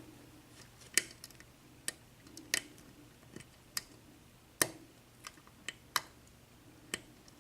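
Lock pick clicking against the pin tumblers of a six-pin Dorma mortise cylinder while it is picked pin by pin under light tension: about ten sharp, faint clicks at irregular intervals.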